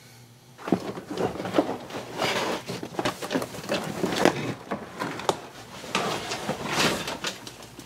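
Old car floor carpet with its fibrous padding being pulled up off the bare metal floor pan and dragged out, giving irregular rustling and scraping that starts about a second in.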